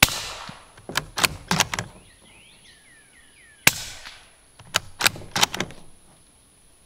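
Two suppressed rifle shots from a Ruger American bolt-action in .300 Blackout fitted with a Dead Air Primal screw-on suppressor, about three and a half seconds apart. After each shot comes a quick run of sharp clacks as the bolt is worked by hand. The first shot is the louder first-round pop, typical when the suppressor has no gas in it yet.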